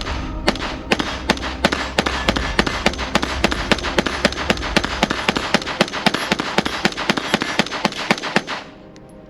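Springfield Armory Hellion 5.56 bullpup rifle firing rapid semi-automatic shots, about three a second, emptying a magazine. The firing stops about eight and a half seconds in.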